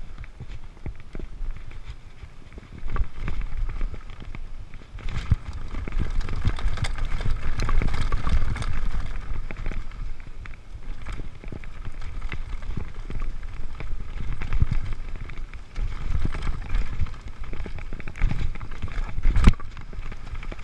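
Mountain bike riding fast over a rough dirt singletrack: tyres rumbling on the dirt, with the chain and frame rattling and knocking over bumps and roots, and wind on the microphone. One hard knock near the end.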